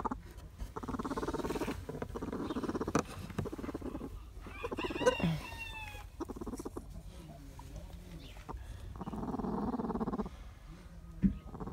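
Hens in a nest box growling in low, rasping stretches, with one short squawk about five seconds in. It is the warning sound of laying hens disturbed on the nest as a hand reaches under them.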